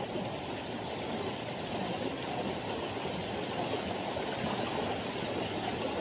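Shallow mountain stream running over rocks, a steady rushing of water.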